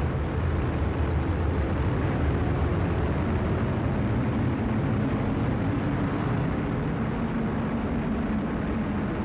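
Atlas V rocket climbing just after liftoff, its RD-180 main engine and two solid rocket boosters making a steady deep rushing rumble that eases slightly over the seconds.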